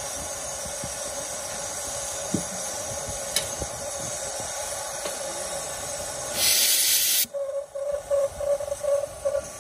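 One-third-scale 4-8-2 steam locomotive hissing steadily while standing. About six seconds in there is a loud, sharp blast of steam lasting about a second, followed by a run of short pulsing sounds as it prepares to move off.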